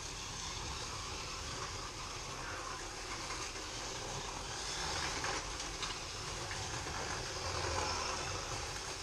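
Three FLY slot cars lapping a Scalextric track: a steady whir of their small electric motors and tyres running on the plastic track, with a few light ticks about five seconds in.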